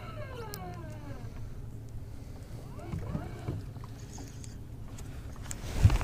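Boat motor running with a steady low hum, its whine falling in pitch over the first second or so. A loud thump comes near the end.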